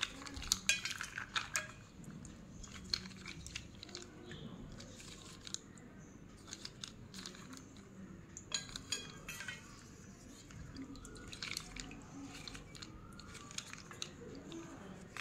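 Slate pencils clicking and clattering against one another and the steel bowl as a bundle of them is handled in wet slate paste. The clicks come in irregular clusters, busiest at the start and again about two thirds of the way through.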